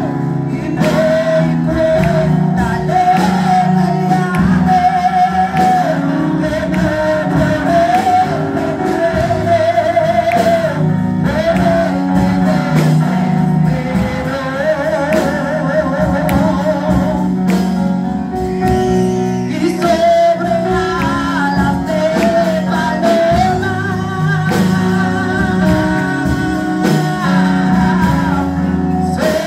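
Worship song: a woman sings a wavering, vibrato melody into a microphone over sustained electronic keyboard chords, amplified through a PA loudspeaker in a large hall.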